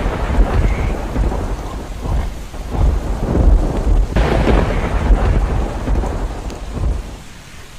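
Heavy rain with rolling thunder: a deep rumble that swells again about four seconds in and dies down near the end.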